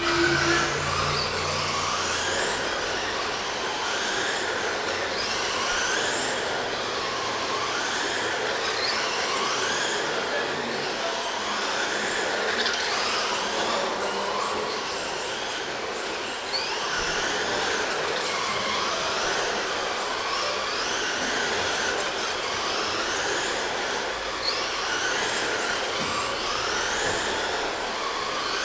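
1/10-scale RC racing trucks running laps, their motors whining and rising in pitch again and again as they accelerate, over a steady noise of several trucks on the track.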